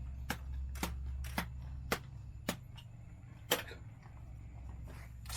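Sharp clicks repeating roughly twice a second over a low steady hum.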